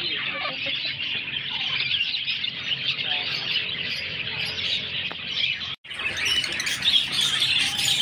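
Dense chatter of many caged birds chirping and squawking together. It breaks off for an instant a little before six seconds in, then comes back louder and brighter.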